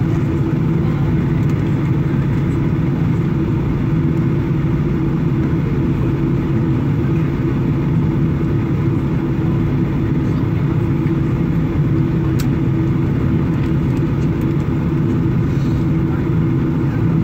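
Steady cabin drone inside a Boeing 737-800 on the ground before takeoff: an even hum with a low steady tone from the aircraft's running systems, and a faint click about twelve seconds in.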